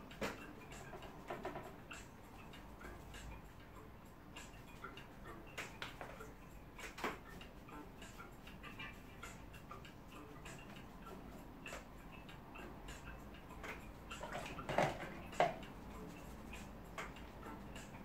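Small hake brush dabbing and sweeping across watercolour paper: faint, irregular taps and scratchy strokes, with two louder strokes near the end.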